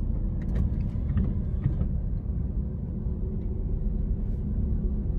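Steady low rumble of a car's engine and tyres heard from inside the cabin while creeping in slow traffic, with a few faint clicks in the first couple of seconds.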